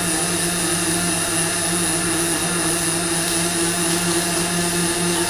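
Robotic MIG welding arc burning steadily: an even hiss with a low hum underneath.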